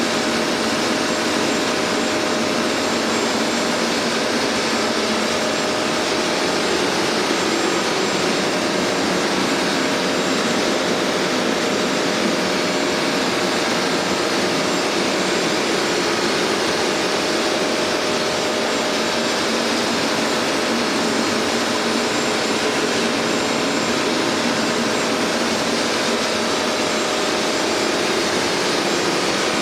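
Hoover MaxExtract carpet cleaner running: a steady motor whir with a faint high whine held throughout.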